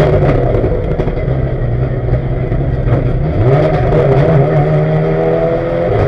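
Ford Focus race car's turbocharged engine running hard, heard from inside the cockpit, while the car climbs with a failed turbo that is filling the cabin with smoke. The engine note drops about a second in, holds lower, then climbs again about three and a half seconds in.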